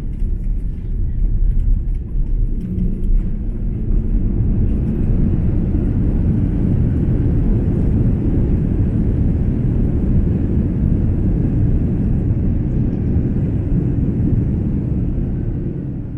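Cabin rumble of an Airbus A330-300 airliner on its landing roll, heard from a window seat. It swells a few seconds in, holds steady, and dies away near the end as the plane slows.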